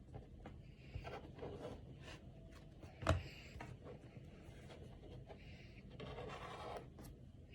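Trading cards being handled and sorted, sliding and rubbing against each other with light ticks. There is one sharper tap about three seconds in and a longer rustle near the end.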